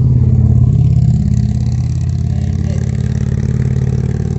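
A motor vehicle driving over the bridge, heard from underneath: a loud, steady low engine hum with a fast pulsing rumble carried through the bridge deck.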